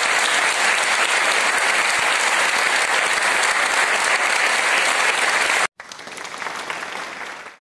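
Audience applauding, a loud, even clatter of many hands clapping. It cuts off suddenly about five and a half seconds in, and a quieter stretch of applause follows briefly before stopping.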